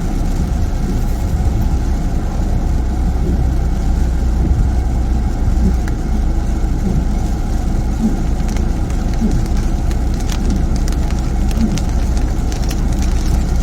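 Inside a moving car in heavy rain: steady low engine and tyre rumble, with rain on the car body and a few faint ticks in the second half.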